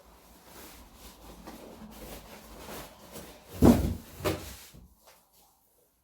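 Low rustling handling noise of TV packaging being moved, then two knocks about half a second apart a little past the middle, the first the louder, before it goes quiet.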